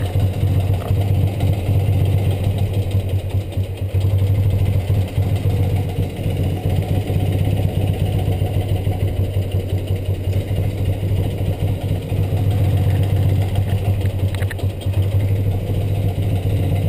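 BMW R75 air-cooled flat-twin motorcycle engine idling while each cylinder's spark plug is shorted out in turn, so that it runs briefly on one cylinder at a time. Comparing how much it bogs on each side is a check of whether the two carburettors are balanced. The engine runs a little quieter through the middle stretch.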